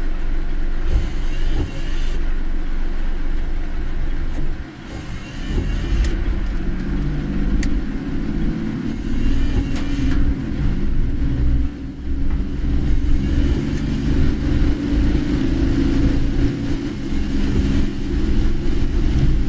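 Car driving on a rain-soaked road, heard from inside the cabin: a steady rumble of engine and tyres, with several bursts of hiss from water on the road.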